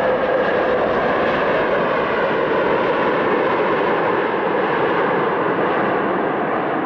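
Jet airliner's engines running, a steady loud rush with a faint hum near the start.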